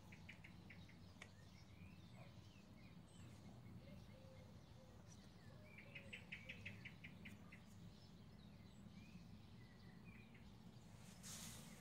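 Faint outdoor birdsong over a low steady background hum: a quick run of short repeated high notes just after the start and a longer run about six seconds in, with scattered soft chirps between.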